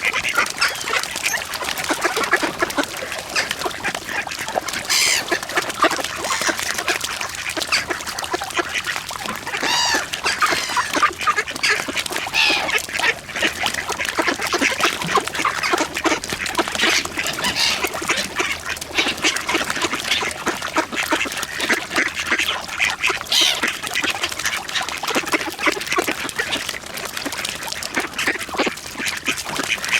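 A large flock of mallard ducks quacking nonstop, many short calls overlapping in a dense chorus: the excited calling of ducks in a feeding frenzy.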